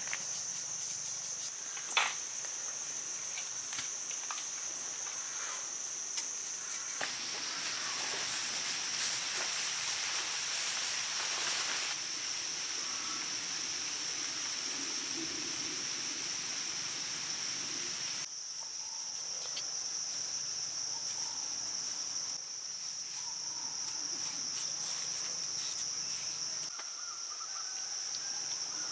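Insects trilling in a steady high-pitched chorus, with a few light knocks and rustles mixed in. The chorus level jumps abruptly several times.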